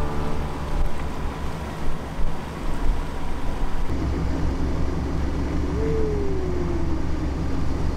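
Low rumble of wind and water rushing past a sailboat under sail, uneven for the first few seconds and steadier after about four seconds. A short tone slides downward about six seconds in.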